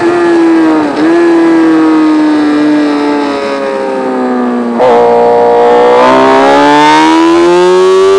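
Sport motorcycle's engine heard from an onboard camera, running hard at high revs. Its pitch sinks slowly through the first half, with a brief dip about a second in, then jumps up just before five seconds and climbs steadily as the bike accelerates.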